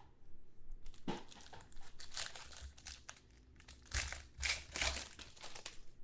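Plastic wrapper of a football trading-card pack being crinkled and torn open, in irregular crackling bursts, the loudest about four to five seconds in.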